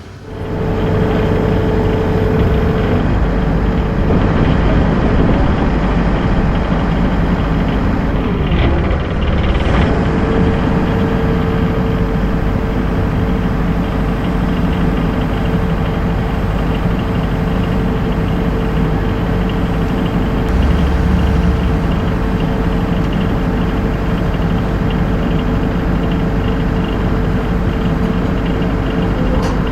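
An engine running steadily at close range, with a low rumble and a held whine. The whine drops out about three seconds in and comes back about ten seconds in.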